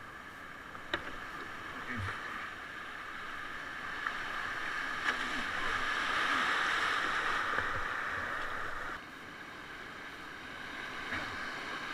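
Rushing whitewater around an open canoe running a river rapid: a steady rush of water that builds to its loudest in the middle and drops suddenly about nine seconds in, with a few short sharp knocks.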